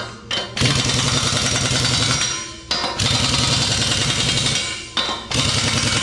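Impact wrench hammering in three bursts of about two seconds each, with short pauses between, as track pad bolts are run in.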